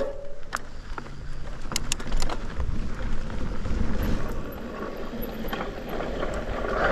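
Mountain bike rolling down a dry dirt singletrack: tyres running over dirt and the bike rattling, with a few sharp clicks in the first two seconds. Wind rumbles on the camera microphone, heaviest around the middle.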